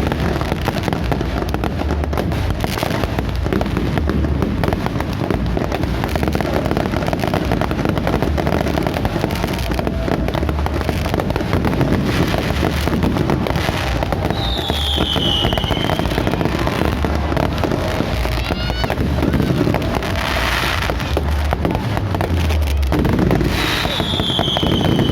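New Year fireworks going off continuously: a dense crackle of pops over repeated low booms. Two short falling whistles come about halfway through and again near the end.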